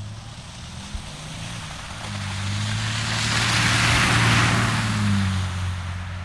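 A car passing by: its engine hum and tyre noise swell to a peak about four seconds in, then fade as it moves away, the engine's pitch dropping slightly as it passes.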